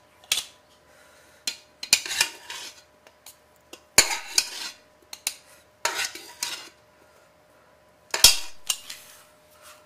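Stainless steel hand potato ricer clanking and scraping against a metal pot as boiled potatoes are scooped into its hopper, in short bursts of clatter about every two seconds.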